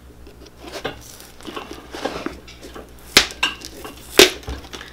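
Metal knife scraping and prying under a boot's worn heel pad to lift it off the heel block, with scattered small scrapes and two sharp clicks about three and four seconds in.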